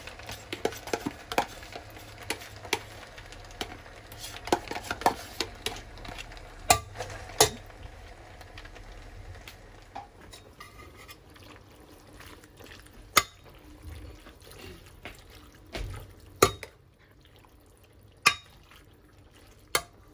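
A metal slotted spoon stirring bow-tie pasta and cream in a stainless steel pot, with frequent clinks and scrapes of the spoon against the pot. The clinks come thick and fast for the first several seconds, then thin out to a few single knocks a couple of seconds apart.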